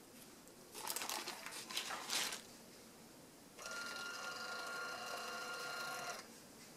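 A glass jar shuffled into place on a woven straw mat, a brief rustling scrape, then about three and a half seconds in a compact label printer runs for about two and a half seconds with a steady whir, printing a label, and stops abruptly.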